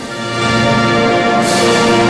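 Marching band music: sustained, held chords that swell in loudness over the first half second, then stay full and steady.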